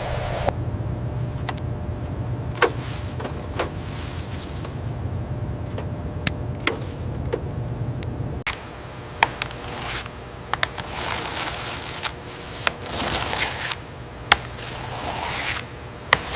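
A steady low hum that cuts out about halfway through, with scattered sharp clicks and ticks throughout and several swelling scrapes in the second half.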